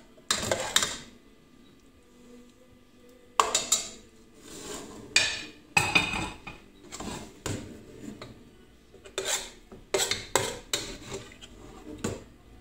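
Metal ladle clinking and scraping against a stainless steel cooking pot as meat rolls and sauce are lifted out, in irregular knocks.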